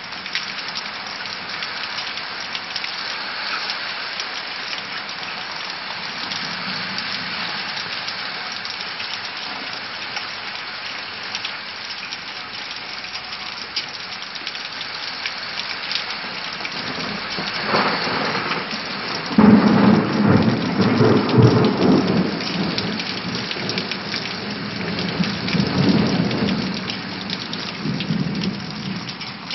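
Thunderstorm: rain falls steadily throughout. A little over halfway in, thunder breaks suddenly and rumbles for a few seconds, and a further rumble of thunder follows near the end.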